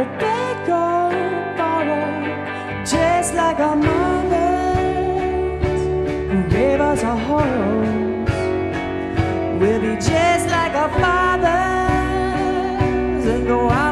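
Live rock band: a man singing over electric guitars, with the bass and drums coming in about three seconds in and the full band playing on.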